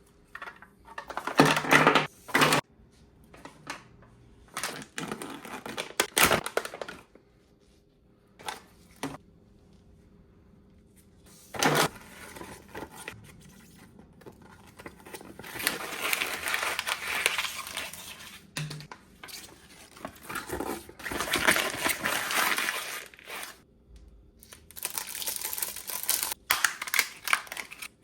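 Toy packaging being handled and opened: irregular bursts of crinkling and tearing, with sharp clicks and taps in between and short quiet pauses.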